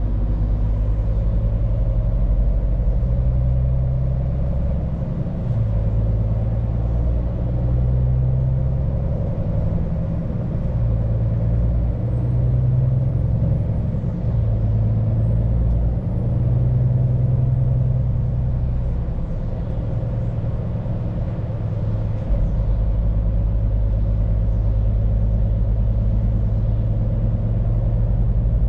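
Scania P410 truck's diesel engine running on the road with tyre and road noise, a deep steady drone whose pitch shifts a few times as engine speed changes.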